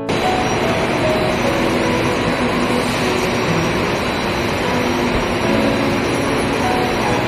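Steady machinery noise of an aluminium sheet coating and conveyor line, running evenly without a break.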